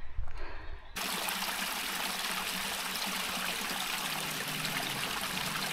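Stream water running steadily, cutting in abruptly about a second in after a brief low rumble.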